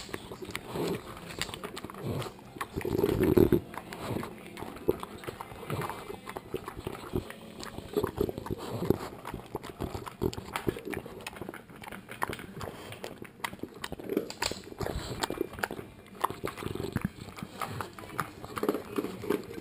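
English bulldog licking and lapping mashed potatoes off a plate, with a run of wet smacking and tongue clicks and a louder burst about three seconds in.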